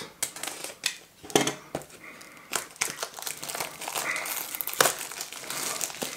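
Crinkling and clicking of a small Funko Mystery Mini cardboard box and its packaging being handled in the hands, with many sharp snaps throughout.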